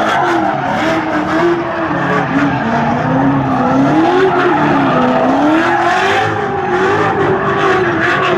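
A V8 muscle car doing a burnout: the engine held at high revs, its pitch wavering up and down, over the hiss of spinning tyres.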